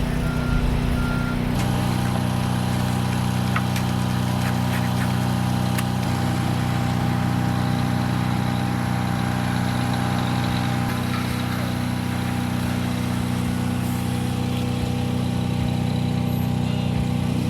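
A large engine, typical of a concrete truck or pump at a slab pour, running steadily at a constant speed; its note shifts slightly about a second and a half in, with a few faint clicks over the top.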